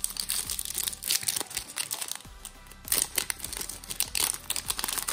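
Plastic wrapper of a basketball trading-card pack crinkling in quick, sharp bursts as it is handled and opened, over steady background music.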